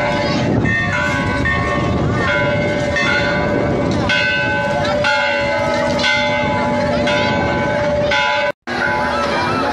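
Hindu temple bells struck over and over, several ringing tones overlapping, with a crowd chattering beneath. The sound cuts out for a moment near the end.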